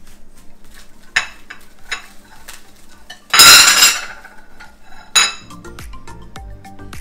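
Plastic cling wrap crinkling as it is handled and peeled off a freshly pressed raw chicken patty, with a short crackle about a second in, a loud longer crackle a little past halfway, and another short one after five seconds. Background music comes in near the end.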